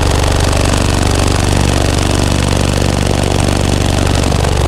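Very loud car-audio bass from Sundown Audio Team NEO 18-inch subwoofers driven by Dynamic Audio DA-7000.1 amplifiers: a steady, deep bass drone that overloads the microphone.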